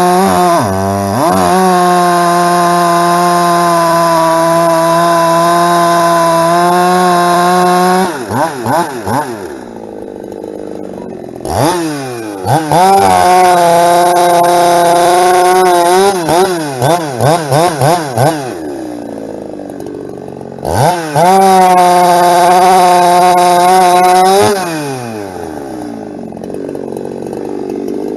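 Ported Husqvarna 372 two-stroke chainsaw bucking firewood: three long full-throttle cuts, the engine holding steady high revs through each, dropping back and blipping the throttle between cuts.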